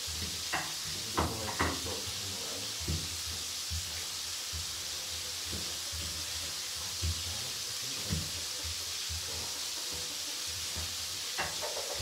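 A pestle grinding chillies and spices in a flat mortar, with scattered dull knocks, over a steady sizzle of oil frying.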